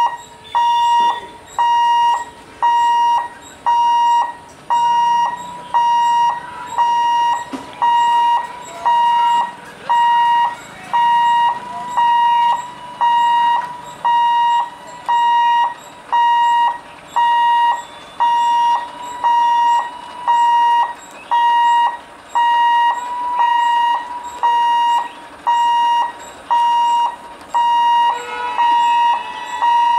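Railway level-crossing warning alarm beeping about once a second, one high electronic tone repeating steadily. A fainter second tone joins near the end.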